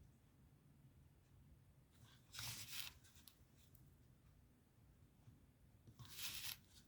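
Crystal radio heard through an amplifier between stations: near silence with faint hiss, broken twice by short bursts of static, about two seconds in and again near the end.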